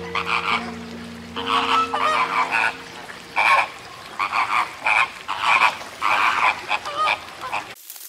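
A flock of flamingos calling: many short calls overlapping in quick bursts, cutting off suddenly near the end.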